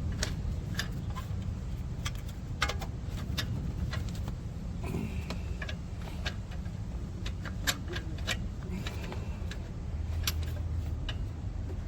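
Irregular sharp metallic clicks and clinks of a ratchet and socket working a seized oxygen sensor loose from an exhaust pipe, over a steady low rumble.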